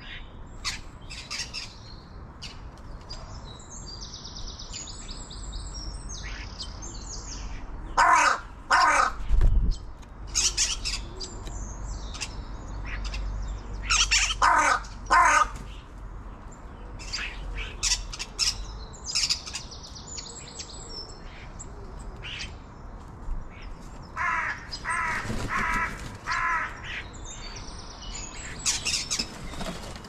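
Crow cawing in three bouts of harsh calls: two caws, then three, then a quicker run of about five. Between the bouts, small songbirds chirp and twitter with high-pitched calls.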